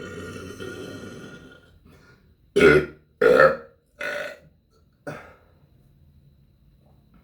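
A person burping: one long drawn-out burp, then four short burps in a row, the first two the loudest, the last one fading off.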